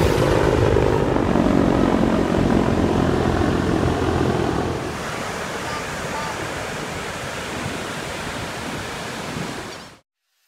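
Marine CH-53 heavy-lift helicopter flying overhead, its rotor and turbines giving a steady beating drone. It is loudest over the first few seconds, falls to a lower level about halfway through as it moves off, and cuts off abruptly near the end.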